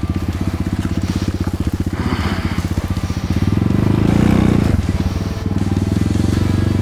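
Dirt bike engine running under throttle on a forest trail, firing pulses steady, pulling harder about four seconds in, easing briefly, then pulling again. Twigs and branches crackle against the bike along the way.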